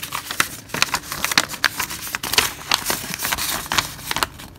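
A folded sheet of printer paper being unfolded and smoothed out by hand: irregular crinkling and rustling that dies away about four seconds in.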